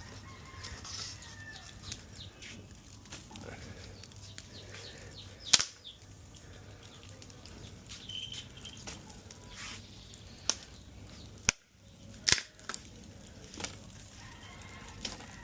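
Wood pallet burning on an open fire, a low steady rush with a few sharp crackling pops, the loudest about five and a half seconds in and again around eleven to twelve seconds in.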